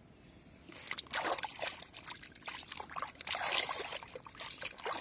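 Hands digging and scooping through wet mud and water under a clump of reeds, with squelching, sloshing and dripping that start about a second in.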